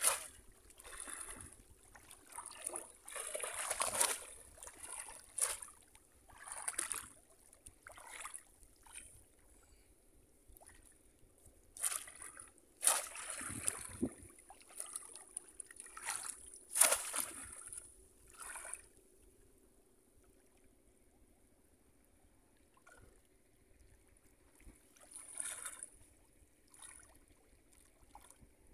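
Shallow floodwater splashing and sloshing as people wade through it and plunge bamboo basket fish traps down into it. The splashes come in irregular bursts every second or two, with a quieter spell about two-thirds of the way through.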